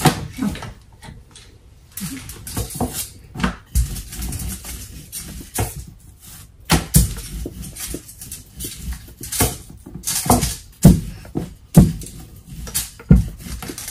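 Wooden rolling pin rolling out talipatti dough on aluminium foil over a wooden board, with irregular knocks and rustling.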